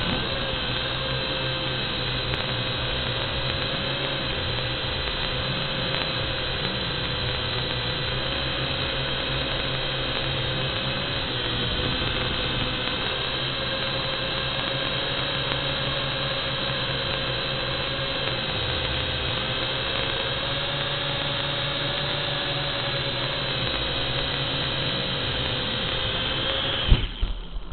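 WLtoys V686G toy quadcopter's four brushed motors and propellers whining steadily in flight, heard close up through the drone's own onboard camera. Near the end there is a sharp knock and the motors cut out.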